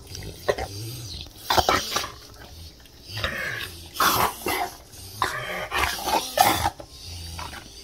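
A dog eating and licking, first from a bowl and then at a plastic tub lid: wet smacking and lapping in irregular bursts, with sharp clicks of tongue and muzzle against the bowl and lid.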